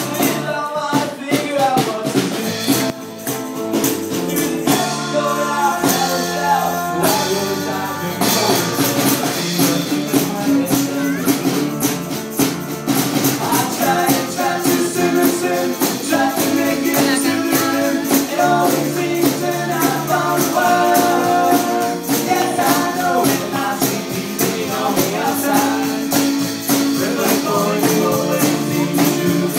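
A live band playing a song with a steady percussion beat and sustained instrumental notes.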